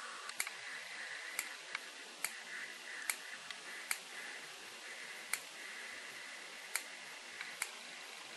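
Small curved nail scissors snipping spun deer hair as a muddler head is trimmed to shape: a sharp snip about every second, irregularly spaced.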